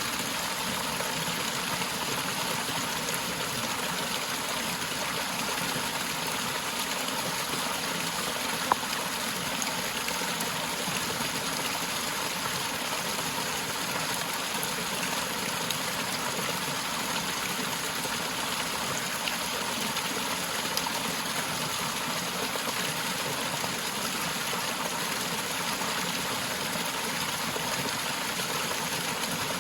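Small forest waterfall splashing and running steadily, with one brief sharp tick about nine seconds in.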